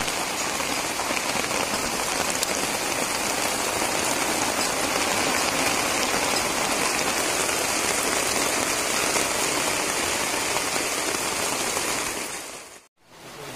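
Steady rain falling on flooded fields, an even hiss that drops away briefly near the end.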